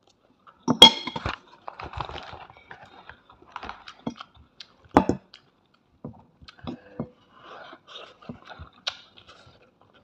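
Close-up eating sounds: chewing, with a metal fork clinking sharply against a plate about a second in and again about five seconds in, and smaller clicks of cutlery between.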